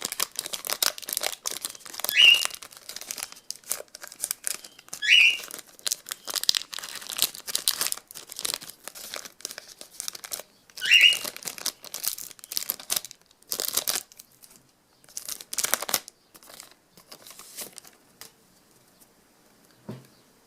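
Foil trading-card pack wrappers crinkling and tearing as packs are opened and the cards handled, in short irregular bursts that thin out near the end. A short rising squeak cuts in three times, about two, five and eleven seconds in.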